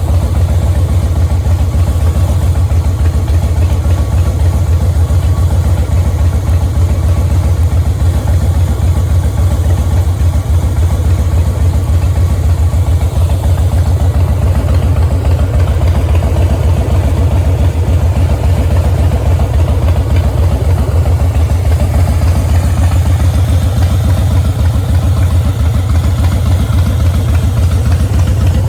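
Harley-Davidson Fat Boy's Twin Cam 96 V-twin idling steadily through an aftermarket Freedom Performance exhaust, with a loud, even low-pitched pulse.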